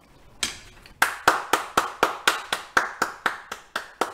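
One person clapping her hands in a quick, even rhythm, about four claps a second, starting about a second in.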